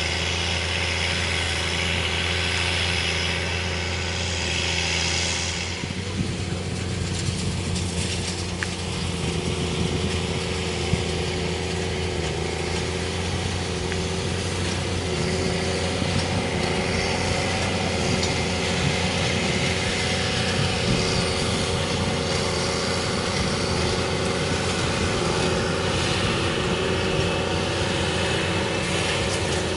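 Tractor engine running steadily while pulling a working hay baler, with a few light knocks from the machinery.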